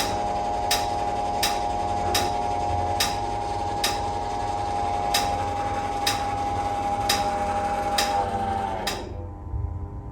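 NordicTrack treadmill incline motor running with a steady whine and a sharp metallic ding about every 0.7 seconds. This is the repeating noise the treadmill makes while inclining or declining. About nine seconds in, the whine winds down in pitch and the motor stops, the dings stopping with it, followed by a couple of knocks.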